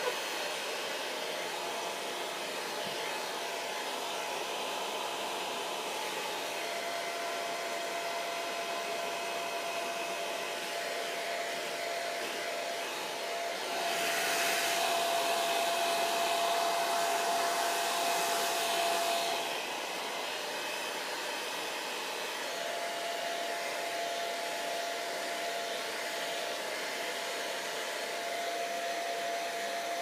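Handheld hair dryer running steadily, a rushing blow with a steady whine. About halfway through it gets louder and hissier for about five seconds, then drops back.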